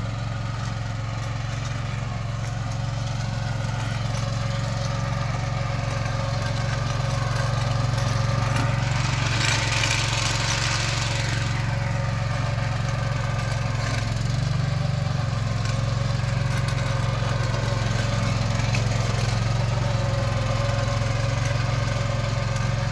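Small Swaraj Code tractor's diesel engine running steadily while it drives a rear rotavator through the soil. About nine seconds in, a brief rush of hissing noise rises over the engine for two or three seconds.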